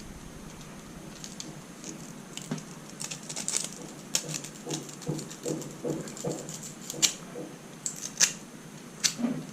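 Irregular light clicks, taps and scrapes of small metal tools, a soldering iron and a screwdriver, working at a laptop screw.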